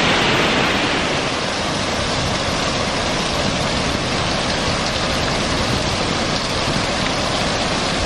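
Steady rushing of a waterfall, falling water heard from above the pool.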